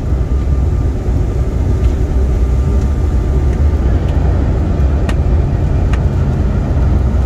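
Airliner rolling along the runway, heard from inside the cabin: a steady low rumble of engines and wheels. A brief click sounds about five seconds in.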